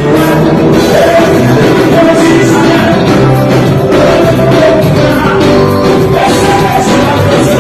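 Live band playing an upbeat song on acoustic guitar, electric bass and keyboard over a steady drum beat, with a voice singing.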